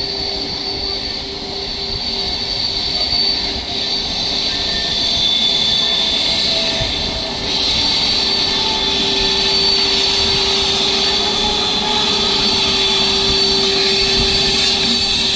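Indian Railways electric locomotive approaching: a steady mechanical whine with a high hiss over it, stepping up in loudness about halfway through.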